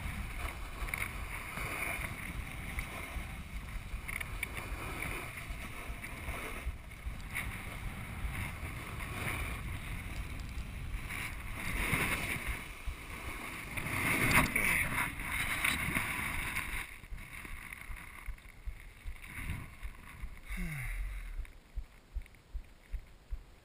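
Snowboard sliding and scraping over packed snow, heard from a chest-mounted camera with wind on the microphone; the hiss swells on the turns about halfway through, then dies down as the board slows. Near the end soft regular pulses come about once every two-thirds of a second.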